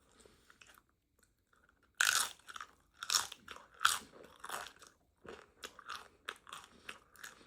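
Close-up mukbang eating of a taco: a loud crunchy bite about two seconds in, then steady crunchy chewing, roughly two or three chews a second.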